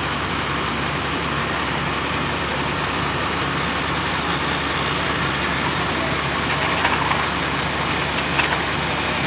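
Engine of a Schwing truck-mounted concrete boom pump running steadily.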